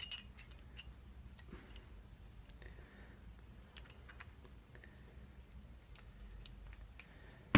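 Faint, scattered small clicks and scrapes of an ASSA pin-tumbler lock cylinder being worked apart by hand, its plug pushed out from the back. There is a sharper click at the start and a louder one at the very end.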